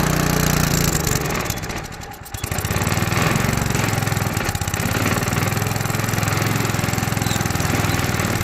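Small engine of a portable rail drilling machine running steadily. It drops away briefly about two seconds in, then picks up again at a lower pitch and runs on.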